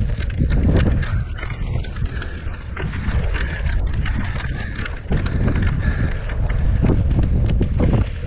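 Mountain bike rattling and clattering over a rocky dirt trail, with irregular knocks and clicks from the frame and parts as the wheels hit stones. Wind rumbles on the handlebar camera's microphone.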